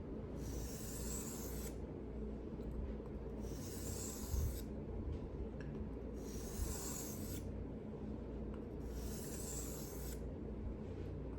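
Steel knife blade being drawn across a whetstone in slow, even strokes: about four long scraping passes, one every two to three seconds, over a steady low hum.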